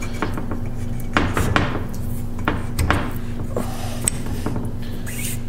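Light metal clinks, knocks and scrapes as a steel packing nut with a rubber wiper seal is slid down over a hydraulic plow ram and handled, about half a dozen separate knocks, over a steady low hum.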